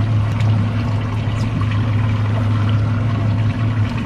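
Boat's 250 hp outboard motor running steadily, a low, even hum.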